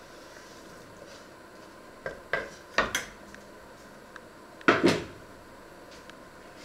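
Diced onion tipped off a wooden board into a small stainless-steel saucepan, with a few knocks and clinks. A louder double clatter just before five seconds in as the pan is set down on the stovetop.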